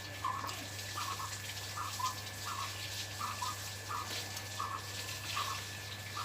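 Close-up mouth sounds of chewing chicken and puffed rice (muri): wet, clicky chews repeating evenly about one and a half times a second.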